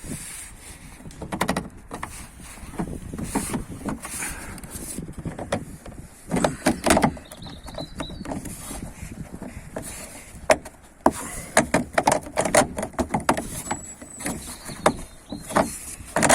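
Chrome tailgate trim on a Hyundai i40 Estate being prised off by hand: irregular clicks, knocks and creaks of its plastic clips and panel, coming in clusters.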